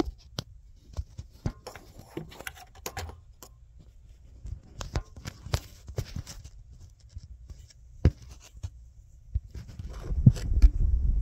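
Irregular clicks and light metal knocks of a socket wrench on a long extension being worked on a starter mounting bolt. Near the end a louder low rumble with several knocks comes in.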